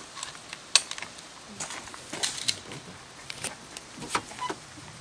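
Footsteps crunching on a gravel road: irregular sharp crunches and clicks, about one or two a second.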